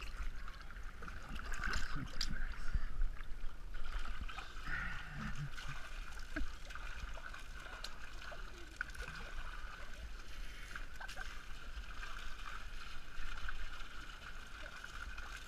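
Swimming-pool water sloshing and splashing around swimmers, with scattered small splashes.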